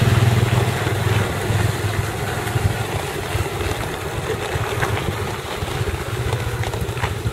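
Small motorbike engine running, loudest in the first second or so and then lower, with wind noise on the microphone.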